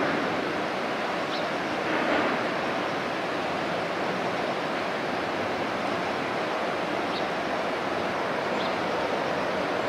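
Steady rushing wash of water from a passing container ship's wake and the waves of the strait, mixed with wind, swelling briefly about two seconds in.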